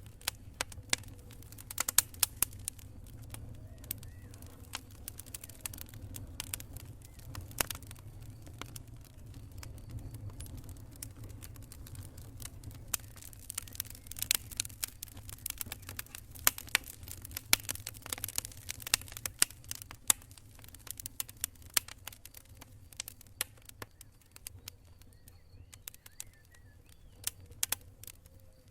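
Wood campfire crackling: irregular sharp pops and snaps, several a second, over a low steady rumble.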